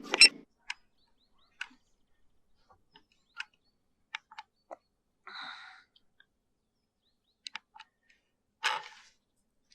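Scattered sharp clicks and ticks, a dozen or so spread irregularly, with a short hiss about halfway and a louder rustling burst near the end; a steady low hum cuts off just after the start.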